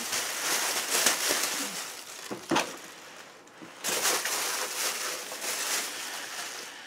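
Rustling and crinkling of packaging being handled, uneven, with a few sharper crackles and a short quieter spell about three seconds in.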